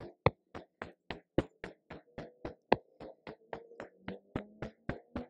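Hand tapping briskly on the upper arm and shoulder joint through a sweatshirt sleeve in qigong body tapping, about four even taps a second with an occasional harder one.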